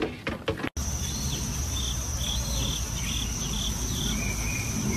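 A few sharp clacks of a young goat's hooves on wooden stumps, then a steady high-pitched insect drone of crickets over a low rumble, with a run of short chirps in the middle and a lower chirp near the end.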